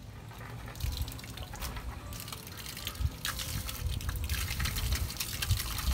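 Water running and splashing from a newly plumbed outdoor hose bib, a steady hiss that grows stronger about three seconds in.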